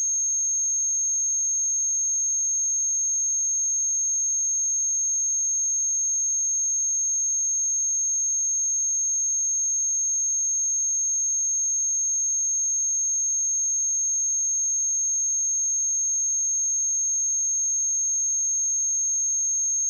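A steady, high-pitched pure sine-wave test tone at 6442 Hz, held at one pitch and one level without a break.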